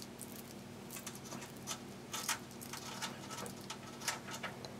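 Faint crinkling and small irregular clicks of thin plastic being wrapped by hand around the frayed end of a sleeved cable, over a low steady hum.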